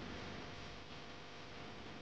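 Steady low background hiss with a faint steady hum and no distinct events: room tone or recording noise.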